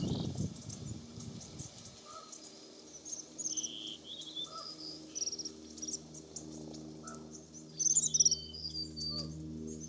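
A flock of American bushtits giving high, thin twittering contact calls: short notes scattered throughout, with a louder cluster of calls about eight seconds in. A low steady hum runs underneath, and there is a low rumble in the first two seconds.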